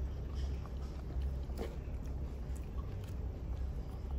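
Grapes being chewed: faint, scattered clicks and smacks of eating over a steady low hum.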